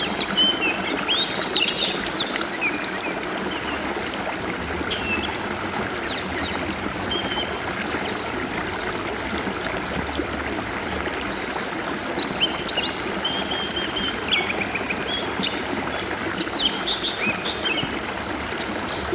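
A stream trickling and flowing steadily under an oriental magpie-robin (kacer) singing a run of varied, quick whistles and chirps. A short burst of high hiss comes about eleven seconds in.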